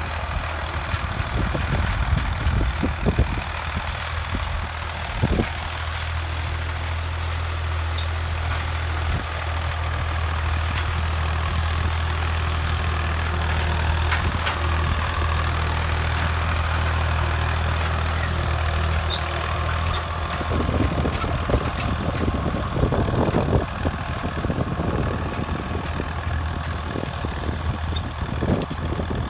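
Swaraj 735 tractor's three-cylinder diesel engine running steadily while pulling a disc harrow through ploughed soil. About twenty seconds in, the sound turns rougher and more uneven.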